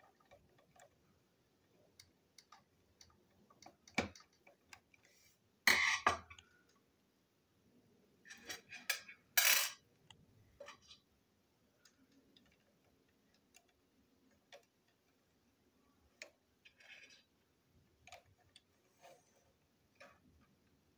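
Small clicks and taps of a screwdriver and small plastic and metal parts being handled and set down on a hard tabletop. There is a sharp knock about four seconds in, and two louder clatters, one about six seconds in and one about nine to ten seconds in.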